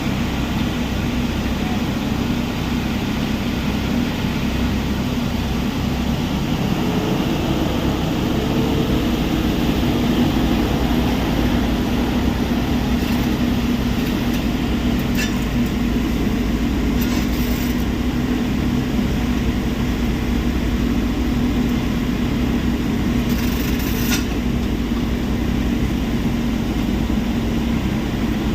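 Heavy diesel earthmoving or crushing machinery running steadily: a constant low engine drone with a steady hum, and a few brief high clinks in the second half.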